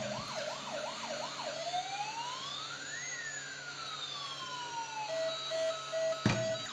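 Emergency-vehicle sirens: a fast yelp of quick rising and falling sweeps, then a slow wail that climbs and falls once, then short even beeps. A sharp click near the end.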